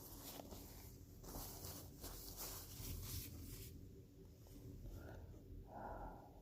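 Faint rustling of a tissue and handling noise for the first half or so, then a few short muffled blips near the end.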